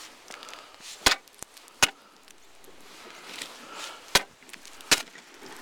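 Ice spud bar striking lake ice ahead of a walker, four sharp chopping hits in two pairs: testing the ice by striking it twice before each step forward.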